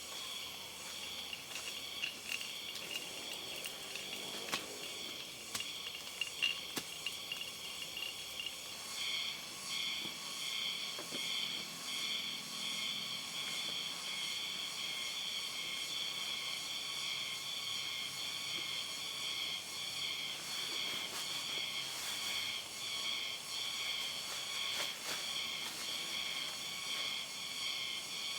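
Insects chirping in a steady high chorus that turns into an even, pulsing rhythm about nine seconds in. A few sharp clicks and knocks come in the first third.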